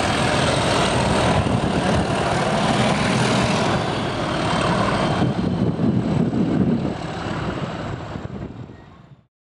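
Pair of Class 37 diesel locomotives with English Electric V12 engines working as they pull a flask train away, their engine noise carrying a steady high whistle. The sound fades over the last couple of seconds and then cuts off abruptly near the end.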